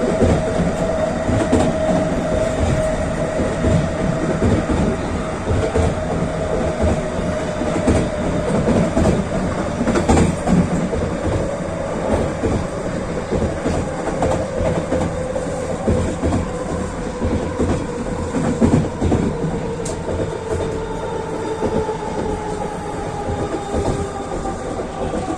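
SkyTrain car running along the guideway: a steady rumble of wheels on rail with occasional clacks, under the whine of its linear induction motors. The whine slowly falls in pitch, then a higher whine rises over the last few seconds.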